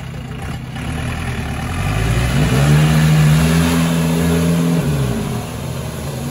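Off-road 4x4 jeep's engine revving hard as it drives through deep mud. The revs climb about two seconds in, hold high for a couple of seconds, then drop away near the end.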